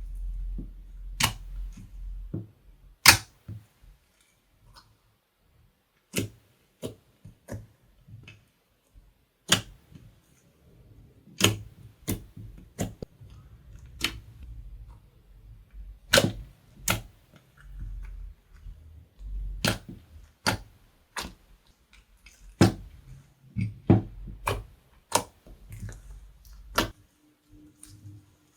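Slime being worked by hand, with irregular sharp sticky clicks and pops, roughly one to three a second, over a low handling rumble.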